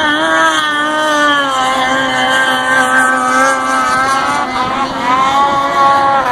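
Two-stroke snowmobile engine running at high revs while the sled skims across water. The pitch sags slowly over the first couple of seconds, then dips and climbs again about five seconds in.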